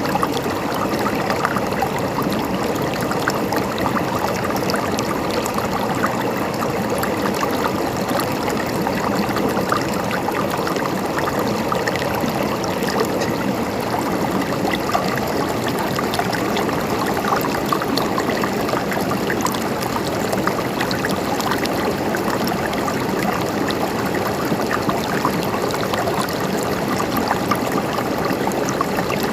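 Water flowing steadily in a stream, trickling and gurgling without a break.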